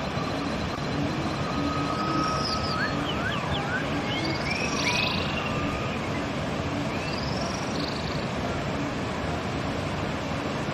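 Steady rush of a flowing river, with wild birds singing short sweeping chirps over it about two seconds in, again around four to five seconds, and near seven seconds.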